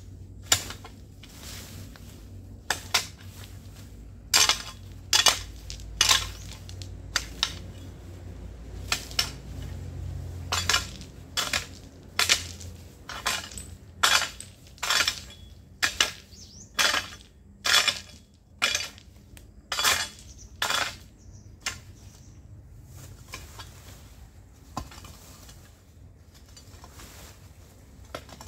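A long-handled hand tool chopping into the ground with sharp, clinking strikes, irregular at about one to two a second, stopping about three quarters of the way through.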